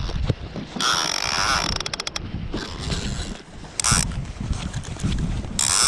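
Conventional lever-drag boat fishing reel clicking and ratcheting in bursts while a fish is on the line: a long burst about a second in, followed by a quick run of clicks, then shorter bursts around four seconds in and near the end.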